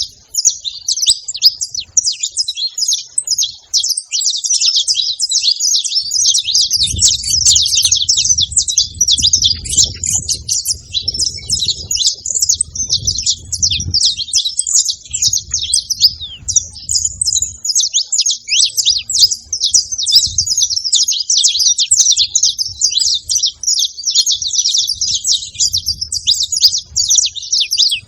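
Saffron finch chirping in a fast, unbroken stream of high, sharp notes.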